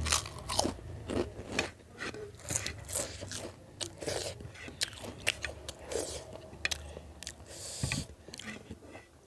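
Close-up chewing with many sharp, irregular crunches of hard food in the mouth.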